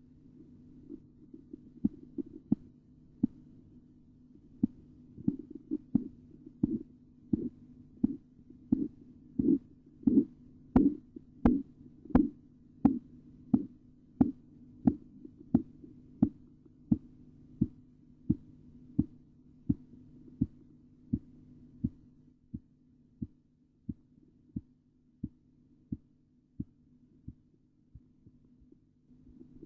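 Korotkoff sounds heard through a stethoscope as a blood pressure cuff deflates. Evenly spaced taps come about three every two seconds: faint at first, louder and sharper toward the middle, then softer until they die away near the end. The first taps mark the systolic pressure (phase 1) and their disappearance marks the diastolic pressure (phase 5). A steady low hum runs underneath.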